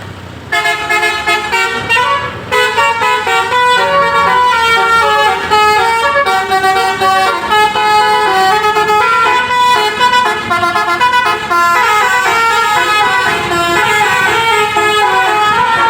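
Basuri "telolet" multi-tone bus air horn playing a melody, quick notes stepping up and down in pitch one after another with hardly a pause.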